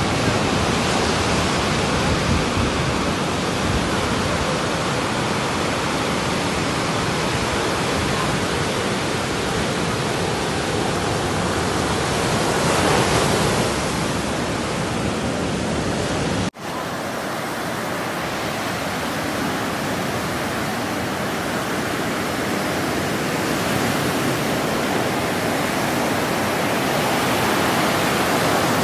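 Heavy surf breaking on a sandy shore in a rough sea: a steady rush of waves that cuts out for an instant about halfway through, then carries on.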